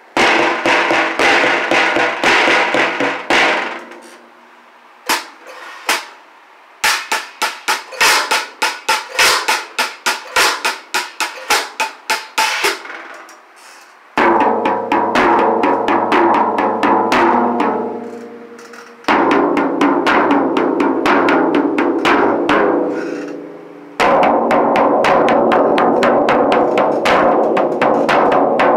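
Acoustic drums of a CB Drums kit played one at a time with rapid strokes. First comes the snare drum, with fast strokes and short rolls separated by brief gaps. From about 14 s it moves on to the toms, one after another about every five seconds, each ringing with a sustained tone under the strokes; the last is the floor tom.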